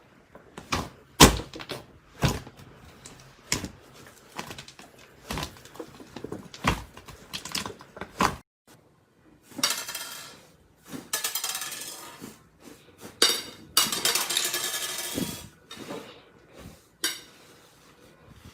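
Slime being pressed and poked, making a string of sharp pops and clicks about once a second, then stretches of dense crackling in the second half.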